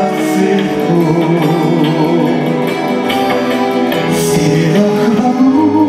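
Live band playing a song on guitars, keyboards, bass and drums, with singing.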